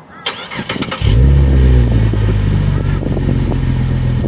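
Holden VF Commodore SV6's 3.6-litre LFX V6 starting: a brief crank, then it fires about a second in through its X-Force exhaust. It flares loudly on start and settles into a steady idle.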